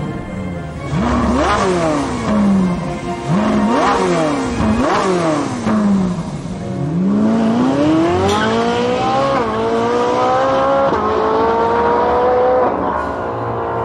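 Racing car engine over a lap: its pitch falls and jumps back up sharply several times as it brakes and downshifts, then about halfway through it accelerates, the pitch climbing with a brief drop at each upshift.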